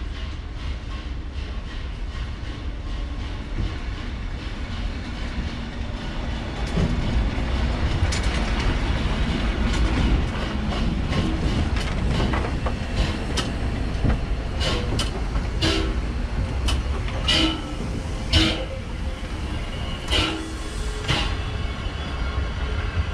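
Pt47 steam locomotive and its passenger carriages rolling past on the rails. A low rumble builds as the engine draws level, with wheels clicking over the rail joints. Short high squeals come several times in the second half.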